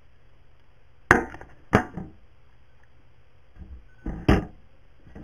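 Handling knocks as the hidden camera clock speaker is moved about and set down on a table: two sharp knocks about a second in and two more about four seconds in, heard through the clock's own camera microphone.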